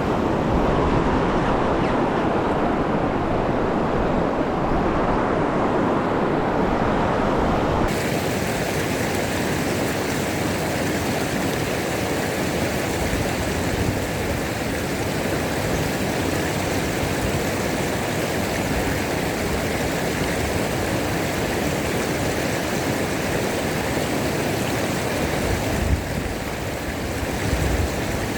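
Steady rush of a river's flowing water. Its sound changes abruptly about eight seconds in, turning thinner and hissier.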